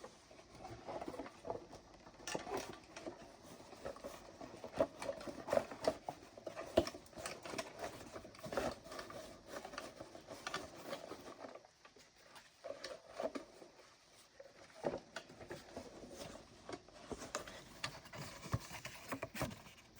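Cardboard box being handled as a model train car is packed back into it: irregular light rustling, scraping and tapping, with a quieter stretch about twelve seconds in.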